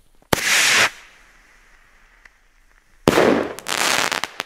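Nico Rocket Strike finned fireworks rockets bursting in the air: one loud bang about a third of a second in, then a second, longer burst about three seconds in that ends in a few sharp cracks.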